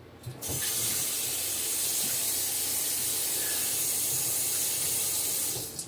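A steady, loud hissing rush that starts about half a second in and cuts off suddenly near the end.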